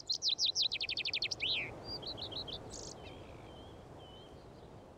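A songbird sings a fast run of high notes that ends in a downward slur, followed by a few short chirps and faint whistled notes over a soft woodland background.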